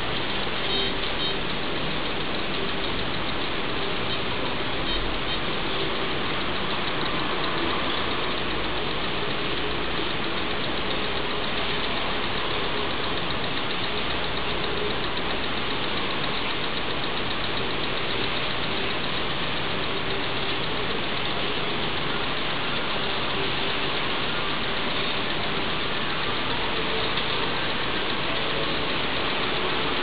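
Handheld electromagnetic radiation meter's alarm clicking so fast that it runs together into a steady, static-like crackle. The crackle signals a strong field reading near a microwave oven that is switched off.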